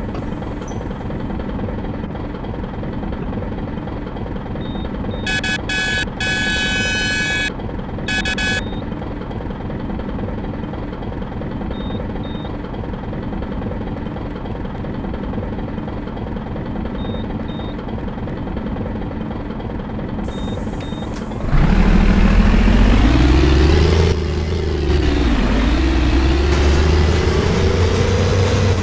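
Bus diesel engine idling steadily, with an electronic beeping tone sounding for a few seconds early on. About three quarters of the way in the engine pulls away under load, its note climbing, dropping at a gear change and then climbing again: a truck-like engine sound.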